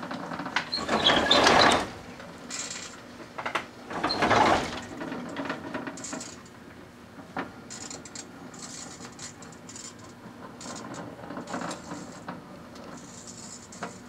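Small Magic Chef microwave oven running with a steady hum while a string of Christmas lights inside arcs and crackles. Two loud crackling bursts come in the first few seconds, then scattered sharp pops and short sizzles.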